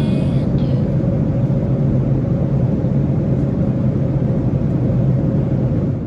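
Steady drone inside a jet airliner's cabin in flight: engine and airflow noise as an even low rumble with a constant hum underneath.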